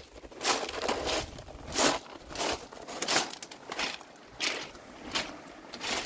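Footsteps crunching on a beach of loose rounded pebbles at a steady walking pace, about three steps every two seconds.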